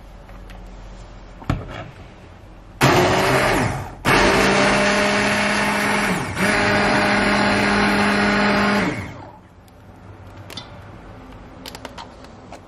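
Hand-held immersion blender pureeing red lentil soup in a stainless steel pot. The motor starts about three seconds in and stops briefly a second later. It then runs steadily for about five seconds, with a short dip near the middle, before winding down. A few light knocks follow.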